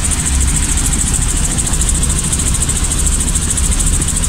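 Light helicopter running steadily: a low engine-and-rotor drone with a high hiss over it that pulses quickly and evenly.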